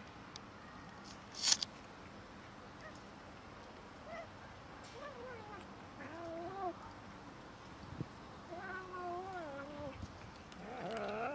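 A cat yowling and growling in a run of drawn-out, wavering calls that start about four seconds in and grow louder near the end: a warning over shared food. A sharp click sounds about a second and a half in.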